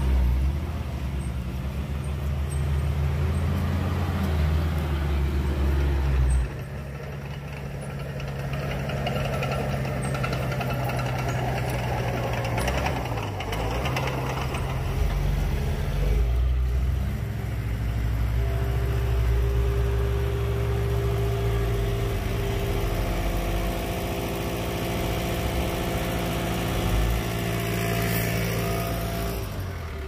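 Heavy diesel earthmoving machinery running steadily. The engine note drops about six seconds in, rises and falls around the middle as under load, and a steady higher whine joins in over the second half.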